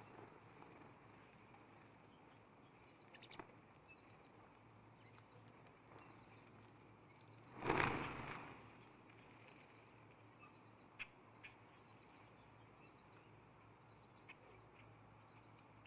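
Faint bird-feeder ambience with a few light clicks and faint high chirps. About eight seconds in there is one short, loud rush of noise.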